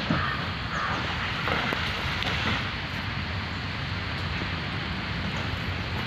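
Wind rumbling on the microphone, with a dog's paws scratching and scraping in dry soil as it digs, in a few short spells during the first couple of seconds.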